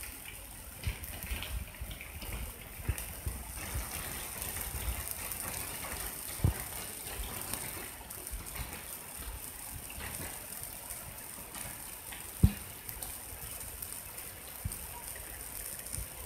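Rain falling at night: a steady hiss of rain and running water. Two short thumps stand out, about six and a half seconds in and about twelve and a half seconds in, the second the louder.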